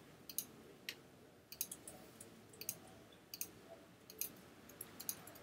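Faint computer mouse clicks at irregular intervals, a dozen or so short, sharp clicks.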